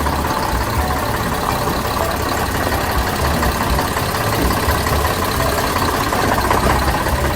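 A small engine running steadily at idle with a low rumble.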